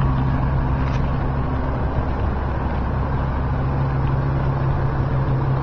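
Ford F-450 tow truck's engine idling, a steady low hum.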